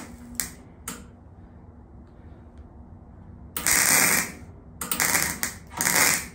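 Air spray gun hissing in bursts as its trigger is pulled and released, laying gold paint on a motorcycle frame: two quick bursts, a pause of about two and a half seconds, then a burst of about a second and two shorter ones. A low steady hum sits underneath.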